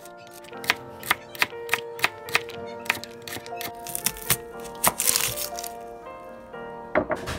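Background music over a run of sharp, irregular knocks, two or three a second, from a knife chopping vegetables on a cutting board. A brief rushing noise comes about five seconds in.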